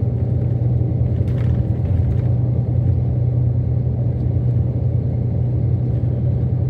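Steady low rumble of a moving vehicle heard from inside its cabin, with a faint click about a second and a half in.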